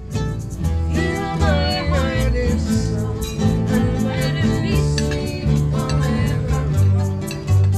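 A live band playing: a voice singing over strummed acoustic guitar, with an even beat and a low bass line.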